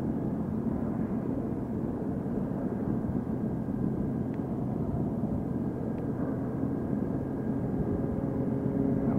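Motorcycle riding at steady town speed: engine hum mixed with wind and road noise.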